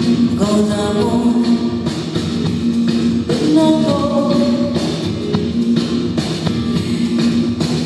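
Live music: a singer holding long notes over a guitar-led band.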